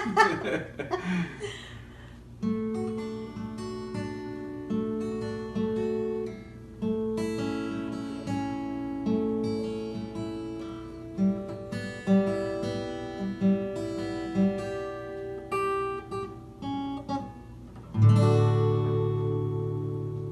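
Acoustic guitar with a small plucked string instrument playing an instrumental song intro: a picked melody of single notes, then a loud strummed chord about eighteen seconds in that rings on.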